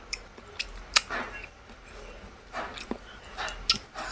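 Close-up eating sounds of a person working on braised chicken feet by hand: lip smacks, sucking and chewing, with several sharp clicks scattered through.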